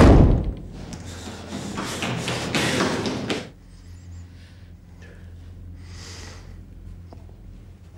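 A door bangs loudly at the start, followed by about three seconds of irregular noisy movement, then a low steady hum.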